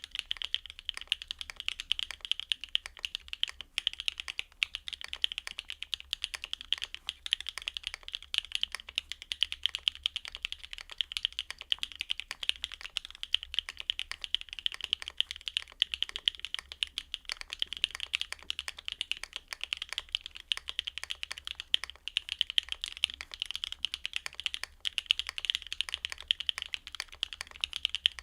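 Neo Ergo custom mechanical keyboard with BSUN Lollipop linear switches being typed on without pause, a dense, continuous run of key clacks.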